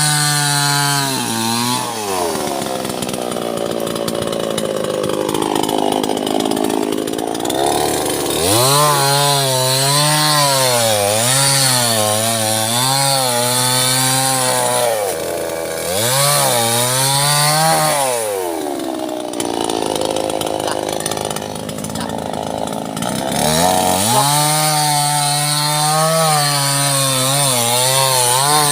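Small chainsaw cutting sengon wood, its engine speed rising and falling repeatedly. Twice it drops for several seconds to a lower, rougher sound as the chain works through the wood.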